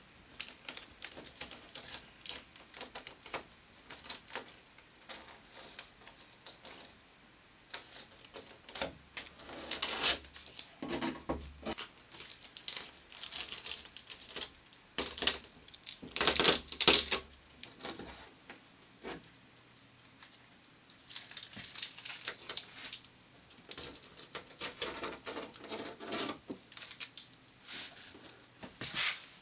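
Paper masking being peeled and torn off a painted panel by hand: irregular crackling, ripping and rustling that comes in uneven spells, loudest a little past the middle.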